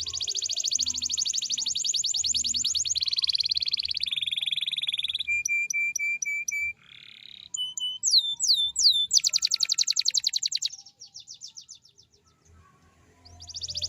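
Domestic canary singing: a long rapid trill that steps down in pitch twice, then a run of short repeated notes, a few falling whistles and another fast trill. It falls quiet for about a second near the end before starting a new trill.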